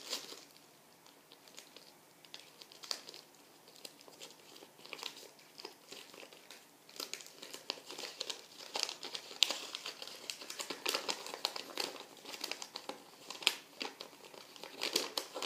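A crumpled paper leaflet being unfolded and handled, crinkling. The crinkling is sparse at first and gets busier in the second half.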